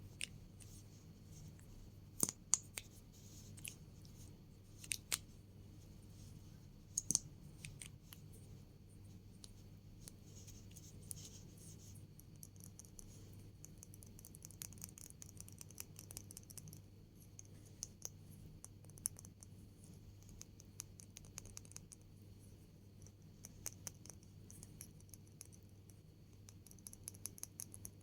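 Close-miked ASMR tapping and clicking: sharp little clicks and scratchy ticks, a few louder ones in the first seven seconds, then a fast, dense run of soft clicks.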